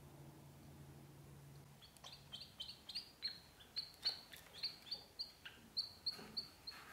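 Ducklings peeping: short high-pitched peeps, several a second, starting about two seconds in, some sliding down in pitch.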